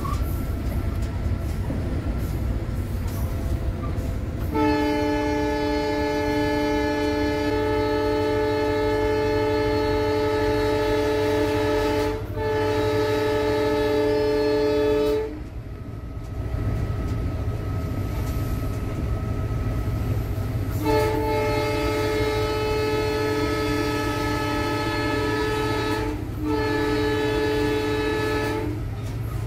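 EMD GT46PAC (WDP4) diesel-electric locomotive's air horn, heard from inside the cab: two long multi-tone blasts of about ten and eight seconds, starting about four seconds in and about twenty-one seconds in, each with a short break near its end. Under them is the low, steady rumble of the moving locomotive.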